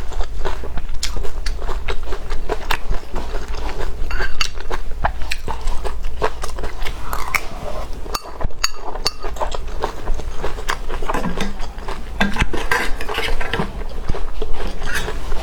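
Close-miked eating: a utensil clicking and scraping against a bowl or plate, with biting and chewing, in many small irregular clicks.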